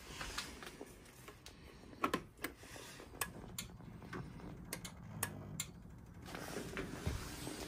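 Viessmann Vitodens 111-W gas boiler powering up: irregular sharp clicks and ticks, with a low hum through the middle.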